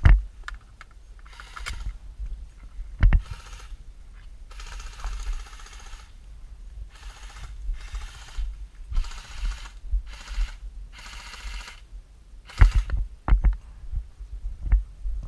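Airsoft guns firing in short bursts of rapid fire, about eight bursts under a second or so each, with a few dull thumps of gear and footfalls in between.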